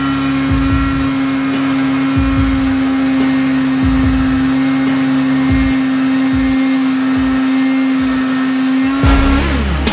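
Angle grinder with a drill-chuck adapter running steadily at speed with a strong, even hum, while sandpaper is pressed against the wooden drum spinning in its chuck. Near the end the motor is switched off and winds down, its pitch falling.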